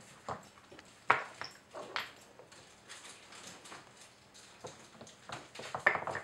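Wooden dog puzzle toy knocking and scraping as a puppy paws at its sliders and noses at a peg. There are sharp knocks about a second in and near the end, a smaller one about two seconds in, and lighter clicks and shuffling in between.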